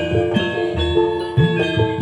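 Gamelan music for jaranan: ringing metallophone notes changing in quick succession over drum strokes whose pitch bends upward, about two a second.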